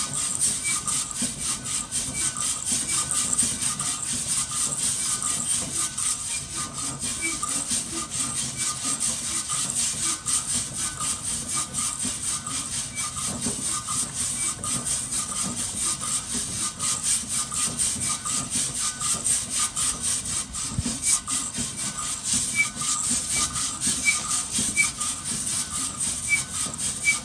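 Coffee beans being stirred and scraped around a pan during roasting, a continuous scraping rattle of many quick strokes.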